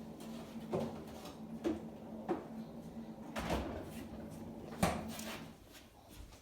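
A handful of irregular knocks and clunks, over a steady low hum that stops near the end.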